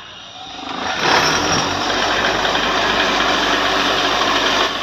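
A motor-driven wire brush wheel spins up about half a second in, then runs steadily with a loud hiss as a rusted tractor cylinder-head bolt is held against it, scrubbing rust from the threads.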